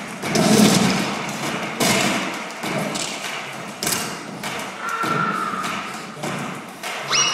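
A series of irregularly spaced thuds and thumps from a staged slapstick fight, echoing in a large arena.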